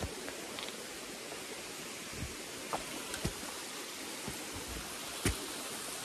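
Steady rushing noise, with a few scattered knocks and scuffs as the hiker steps on steep rock and grips a fixed rope.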